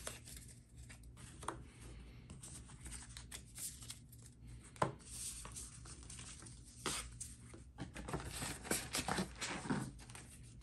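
Hands sliding, gathering and tapping paper trading cards into stacks on a playmat: a run of soft rustles and small clicks, with a sharper tap about five seconds in.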